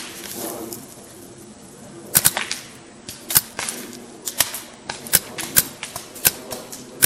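Paintball markers firing: sharp pops in quick bursts of two or three and single shots at uneven intervals, starting about two seconds in.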